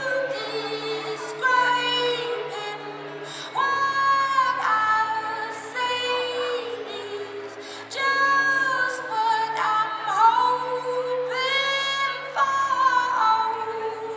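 Music: a slow song in which a woman sings long held notes, often gliding between pitches, over a steady low accompaniment.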